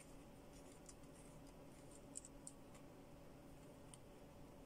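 Near silence, with a few faint small clicks from the metal parts of a vape pen being twisted together by hand, the clearest a little after two seconds in.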